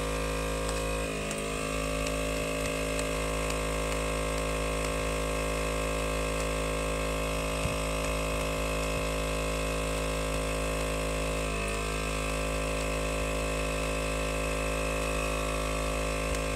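Single onboard 12 V air compressor running steadily, pumping a tyre up through an air hose toward a 50 psi target; it takes a while because it is only a single compressor.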